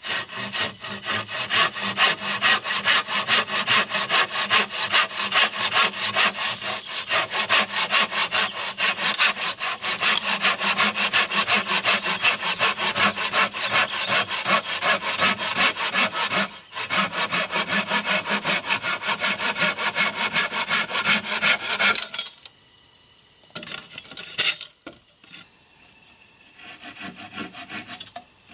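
Hand saw cutting through a peeled dead-tree pole in steady, rapid back-and-forth strokes, with a brief pause about two-thirds of the way through. The sawing stops a few seconds before the end, leaving only quieter scattered sounds.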